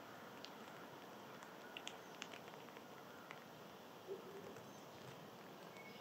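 Quiet backyard feeder ambience: a faint steady hiss with a handful of short, scattered clicks and ticks from birds and small critters feeding.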